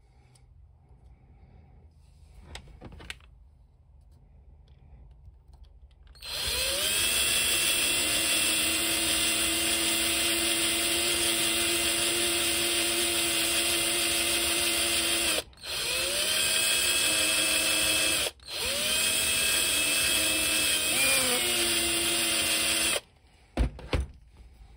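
Cordless drill with a 3.2 mm bit drilling a hole into a small plastic toy part. After a few faint handling clicks, the motor spins up with a rising whine about six seconds in and runs steadily. It stops briefly twice and cuts off near the end.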